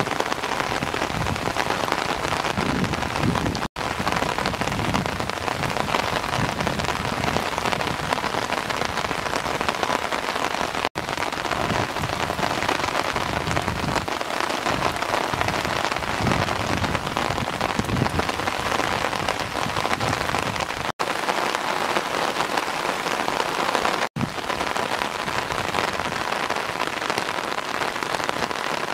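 Steady rain falling and pattering, broken by a few very short silent gaps.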